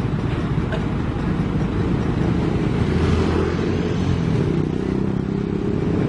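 Heavy diesel engine running steadily, with a motorcycle passing by about three seconds in.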